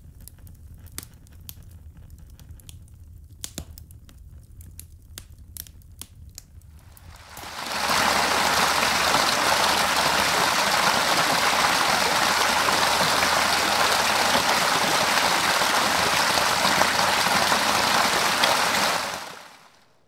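Glowing wood embers crackling, with sparse sharp pops and ticks. About seven seconds in this gives way to loud, steady rushing and splashing of water pouring over rocks in a small waterfall, which fades out near the end.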